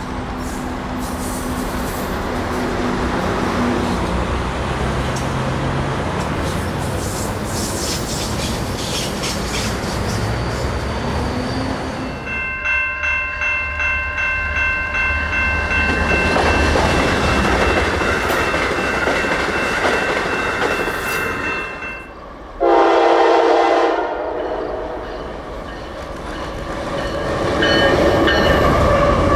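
A GO Transit diesel commuter train rolls past. About halfway through, a locomotive horn, an Amtrak P42DC's, sounds a chord of several notes held for several seconds, then a second, shorter and lower-pitched horn blast comes a little later. Near the end a Canadian Pacific diesel-hauled intermodal freight train runs past.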